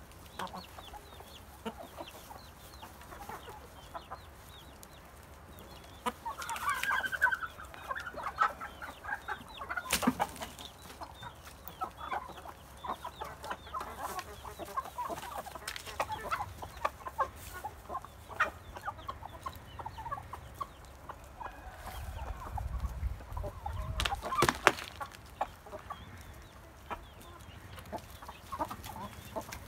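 Hens clucking as they feed, with many small clicks and rustles of pecking among the greens. A louder burst of clucking comes about six seconds in, and two sharp knocks stand out, one about ten seconds in and one later.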